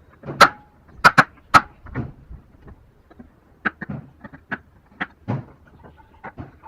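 Irregular sharp knocks of wood being struck in hand joinery work, about a dozen strikes, the loudest cluster in the first two seconds and lighter taps after.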